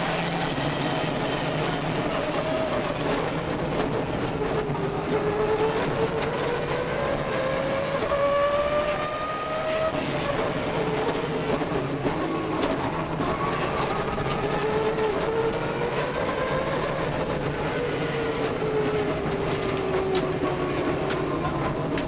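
Subaru Impreza 555 rally car's turbocharged flat-four engine under hard acceleration, heard from inside the cabin. The engine note climbs through the revs, dips briefly about ten seconds in, climbs again, then falls steadily over the last five seconds.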